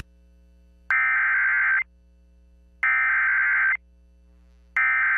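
Emergency Alert System SAME header: three identical bursts of digital data tones, each just under a second long with about a second of quiet between. They carry the coded alert header that opens a broadcast warning.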